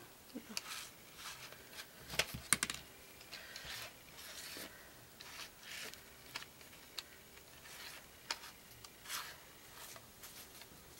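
Wooden coloured pencils clicking and rattling against each other in their cardboard box as they are picked through and one is drawn out. Faint scattered clicks and rustles, with a couple of sharper clicks a little over two seconds in.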